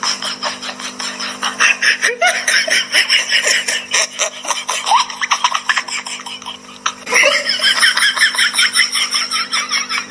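Hearty laughter in quick, rapid bursts, fading briefly about six seconds in and starting up again about a second later.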